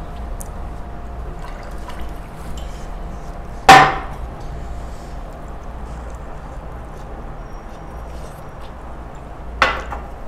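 Water poured from a glass jug into a drinking glass, then two sharp clinks of glassware set down on a glass tabletop: a loud one about four seconds in and a smaller one near the end. A steady low hum runs underneath.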